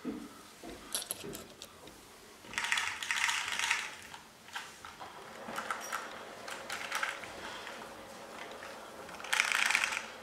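Small toy car's gear motor ratcheting and whirring in several short bursts of a second or so, the loudest two about three seconds in and near the end.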